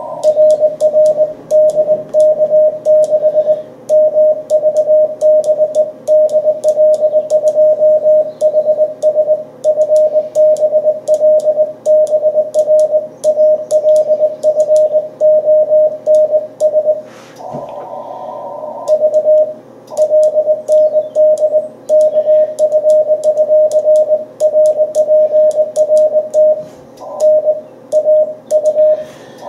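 Ham radio transceiver sounding Morse code (CW): one steady note keyed on and off in rapid dots and dashes, with faint clicks from the Morse key alongside. About two-thirds through, the keying breaks for a second or so of radio hiss, then goes on.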